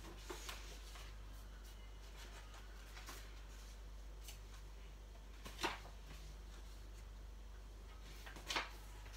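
Paper pages of a colouring book being turned by hand: a few short swishes, the two loudest about halfway through and near the end, over a low steady hum.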